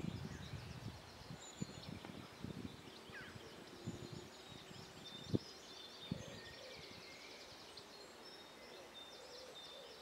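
Faint songs and calls of several small birds, thin high notes and quick trills, with one fast trilling run near the end. A few soft low knocks break in, the sharpest about five seconds in.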